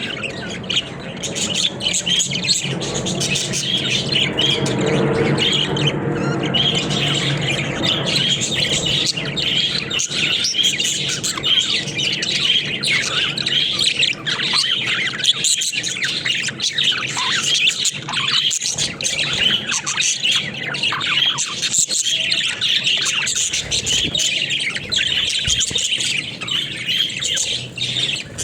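Pet budgerigars chattering continuously in their cage, with many short, quick chirps overlapping without a break.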